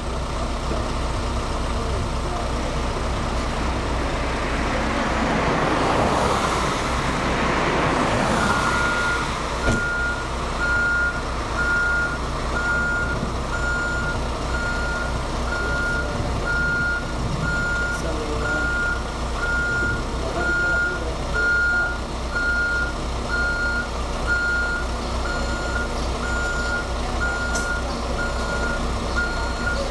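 Diesel engine running with a steady low hum. A rush of noise swells and fades in the first several seconds, then a backup alarm on the Cat backhoe loader starts beeping steadily, about once a second, as the machine is put in reverse.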